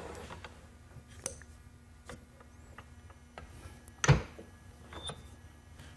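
Quiet handling of a Tailspinner mini lathe's tailstock assembly with the motor off: a few faint clicks, then one sharp knock about four seconds in as the bowl blank on the tailstock chuck is brought up against the headstock drive center, and a lighter knock a second later.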